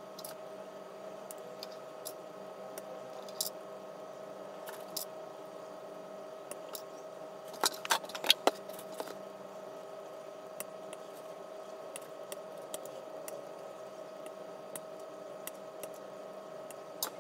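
Plastic model kit parts being snipped from their runners with side cutters: scattered sharp clicks, with a cluster of louder clicks and knocks about eight seconds in. A steady hum runs underneath.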